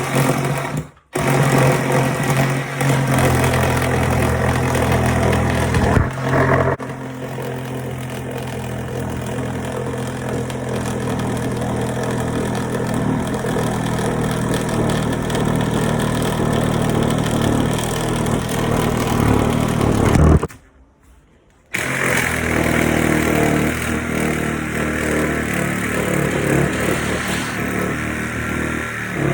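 Reciprocating saw running and cutting through a kitchen countertop. The motor runs steadily at full speed, stops briefly about a second in, then cuts out again for about a second near the two-thirds mark before resuming.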